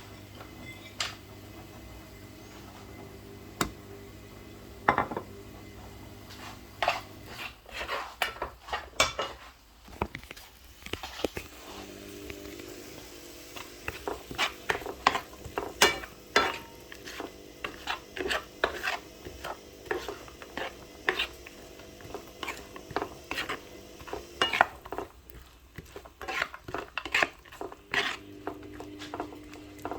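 A metal spoon stirring in a pan, scraping and clinking against it in quick, irregular knocks over a steady low hum. The knocks are few at first and come thick and fast from about seven seconds in.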